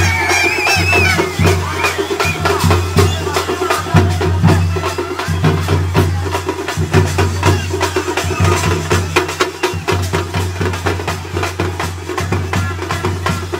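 Fast, steady festival drumming with many strikes a second, over a steady low hum and the noise of a large crowd.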